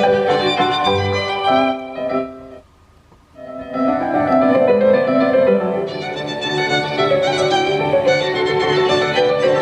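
Music played back on a Sony WM-WE7 Walkman: violin with piano. It breaks off briefly about three seconds in, then resumes.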